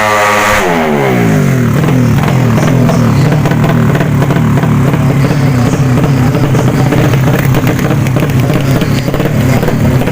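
Tuned 200 cc underbone drag-race motorcycle engine, its pitch falling sharply over the first second or so, then running at a steady pitch.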